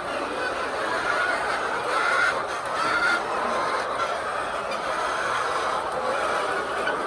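A large flock of hens clucking and calling together in a steady din, with short higher calls rising out of it now and then.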